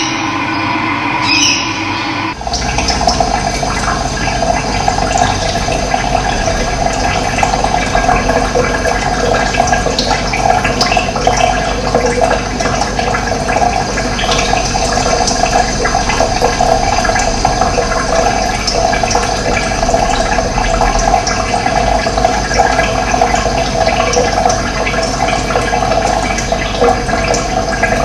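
Running water, a steady even flow that cuts in abruptly about two seconds in, replacing a quieter sound.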